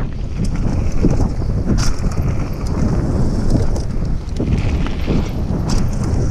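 Scott Gambler 710 downhill mountain bike ridden fast over a loose dirt and gravel trail: tyres rolling and crunching on the ground and the bike rattling, under heavy wind noise on the microphone. A couple of sharp clacks stand out, about two seconds in and near the end.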